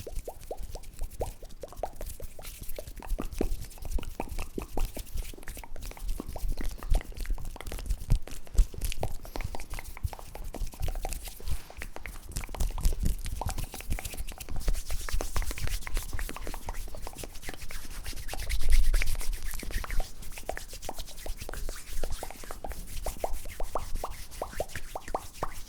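Close-miked ASMR mouth and hand sounds: a dense run of wet pops and clicks, several a second, with a louder stretch about nineteen seconds in.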